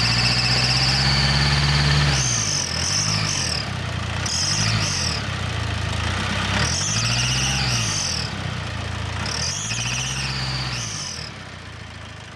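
Car engine revved up and back down about four times, with a high whistle from under the hood that rises and falls in pitch with the revs. The owner suspected the alternator's overrunning clutch or a pulley bearing, though it does not sound much like the clutch.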